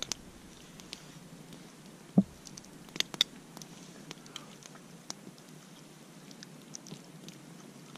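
Metal spoon scraping and clicking against an enamel camp mug while hot oatmeal is eaten, with soft mouth sounds. One short louder sound comes about two seconds in, and two sharp clicks about a second later.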